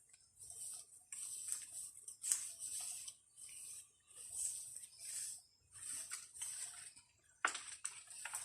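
Light, crisp rustling in short repeated bursts, about one a second: handling foliage and fruit while picking lemons.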